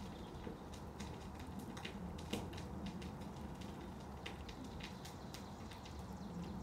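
Steel rod stirring in a crucible of molten metal inside a gas-fired melting furnace: scattered light clicks and crackles over a low steady hum.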